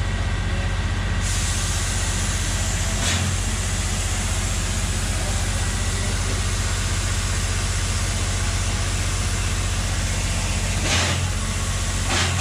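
Cummins QSK60 V16 diesel engine of a Hitachi EX3600 mining excavator running steadily, heard from inside its machinery house as a loud low hum under a rushing noise. The rush grows sharper about a second in, with a brief louder burst about three seconds in and another near the end.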